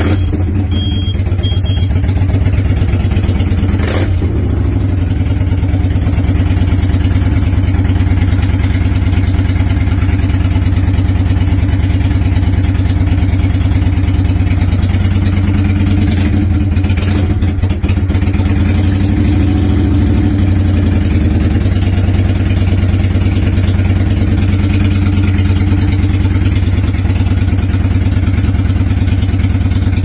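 Kawasaki VN900 Custom's 903 cc V-twin engine idling steadily in neutral.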